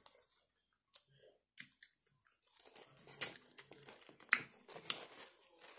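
Close-up eating sounds: scattered clicks and crackles of chewing and handling food. They are sparse at first and thicken from about halfway, with a few sharp louder clicks.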